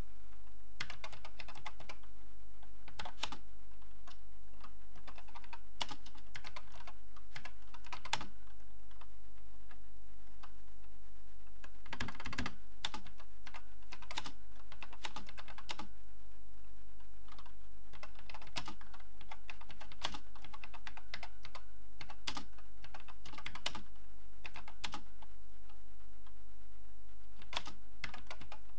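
Keys of an Acorn Electron home computer's keyboard being typed slowly and unevenly: single key clicks with pauses between them, and a quick run of keystrokes about twelve seconds in. A steady low hum runs underneath.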